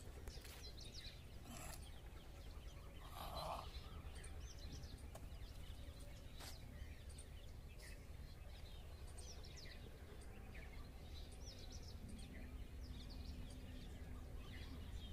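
Quiet rural ambience: scattered small bird chirps over a steady low rumble, with one short breathy noise about three seconds in.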